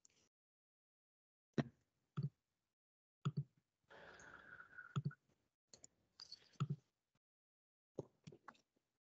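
Faint scattered clicks from computer use at a desk, about nine in all with silence between them, heard through a video-call microphone. A short hiss comes about four seconds in.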